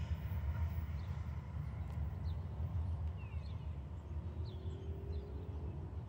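Low rumble of a coal train's loaded hopper wagons running away down the line, fading slowly as the tail of the train passes, with birds chirping briefly over it.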